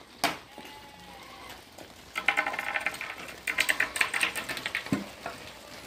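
Hooves of a flock of sheep and goats clattering on an asphalt road. There is a single sharp click near the start, then two spells of rapid clicking, about two and three and a half seconds in.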